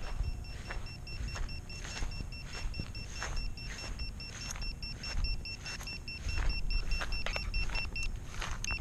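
A VIFLY Finder lost-drone beeper on a downed quadcopter beeping rapidly and high-pitched, about four beeps a second, louder from about five seconds in and breaking off briefly near the end. Rustling steps through tall grass sound over it.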